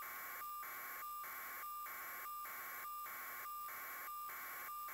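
Electronic static with a steady high tone through it, broken by short regular gaps about every 0.6 seconds.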